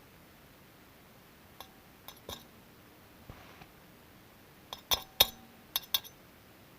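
Metal hand tools, such as spanners, clinking against each other and against hard surfaces in a series of sharp clinks, some ringing briefly. A few light clinks come about a second and a half to two and a half seconds in, then a louder cluster near the end.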